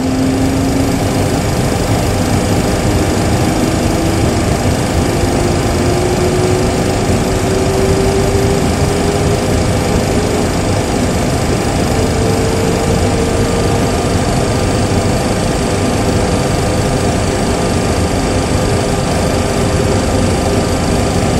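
Boeing 737 Classic simulator's engine sound: the number 1 engine (a CFM56-3 turbofan) spooling up during its start, a whine rising slowly and steadily in pitch. Under it is the steady rush of the number 2 engine, already running at idle.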